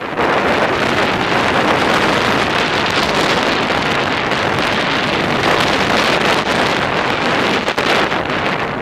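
Steady, loud rush of wind buffeting the microphone of a camera carried downhill on skis or a snowboard.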